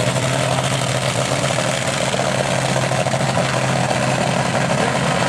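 Monster truck engine running loud and steady as the truck drives slowly across the dirt.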